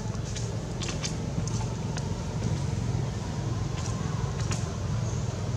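Steady low outdoor rumble with a few faint, short ticks; no monkey calls.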